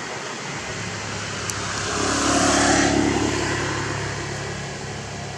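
A motor vehicle driving past on the road, its engine and tyre noise swelling to a peak about halfway through and then fading away.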